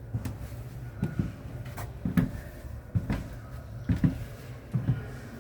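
Footsteps and light knocks, a short thump about every second at a slow walking pace.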